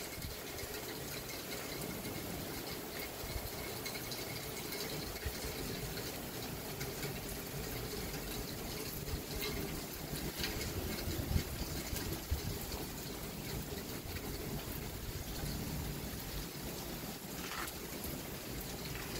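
Steady rain falling: an even hiss of water.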